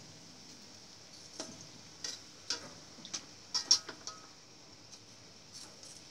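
Cassava fritters deep-frying in a wok of oil with a steady sizzle. A metal utensil and wire strainer clink and tap against the wok several times in a cluster through the middle.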